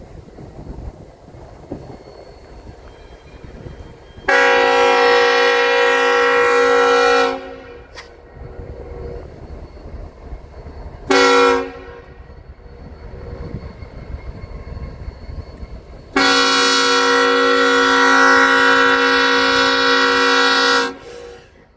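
Horn of a CN EMD SD70M-2 freight locomotive sounding a chord in three blasts: a long one, a short one, then a long one of about five seconds, in the pattern of a grade-crossing signal. Between the blasts the locomotives' diesel engines and the train rumble past.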